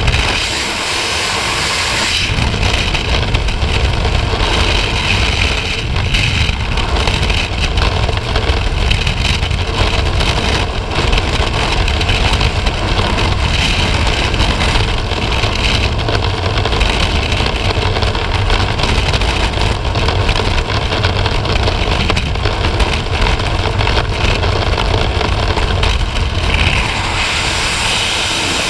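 Freefall wind rushing over a skydiver's camera microphone, a loud, steady rumble with a hiss on top. Near the end the low rumble falls away and a thinner hiss remains.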